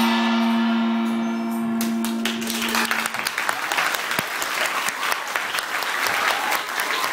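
A held final note of the dance music rings and fades away over about three seconds. About two seconds in, the audience breaks into applause, which carries on steadily.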